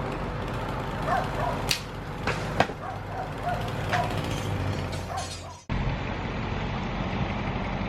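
A dog barking repeatedly in short yips, mixed with a few sharp clicks, until the sound cuts off suddenly about five and a half seconds in. A steady low hum follows.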